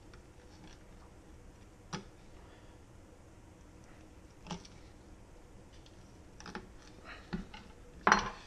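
Fillet knife cutting the rib cage away from a walleye fillet on a wooden cutting board: a few scattered light clicks and taps, with a louder one near the end.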